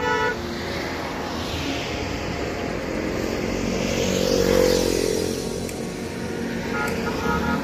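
A road vehicle passing close by: its noise swells to a peak about four and a half seconds in and drops in pitch as it goes past. A horn note ends just at the start, and short horn toots sound again near the end.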